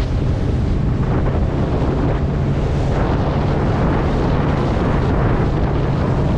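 Suzuki outboard motor running steadily with a low drone as the inflatable boat cruises, mixed with heavy wind noise on the microphone.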